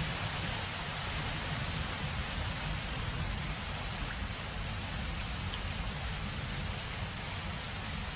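Rain falling steadily, an even hiss with a low rumble underneath.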